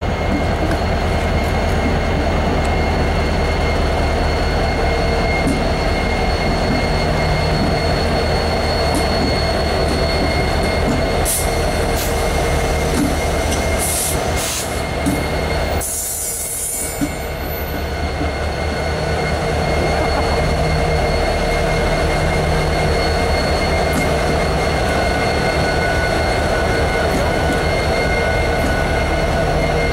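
Norfolk Southern EMD SD70ACe diesel-electric locomotives passing close by one after another, their two-stroke V16 diesel engines running under a steady high-pitched whine. The sound dips briefly about halfway through, then builds again as the next unit comes by.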